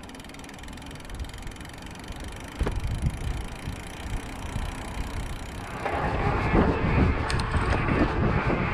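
Mountain bike rolling on a paved path, heard from a handlebar-mounted action camera: a low rumble of tyres and rushing air, growing much louder and brighter about two-thirds of the way in.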